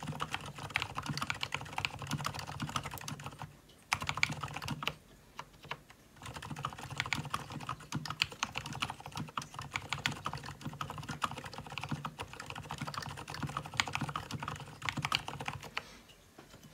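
Typing on an Mstone Groove T87A tenkeyless mechanical keyboard with lubed Gateron silent brown switches: a fast, steady run of keystrokes, broken by a couple of short pauses about a third of the way through.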